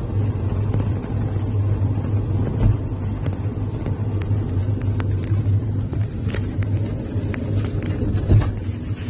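Intercity bus running at road speed, heard from inside the cabin as a steady low rumble and hum. From about halfway through come scattered light clicks and knocks.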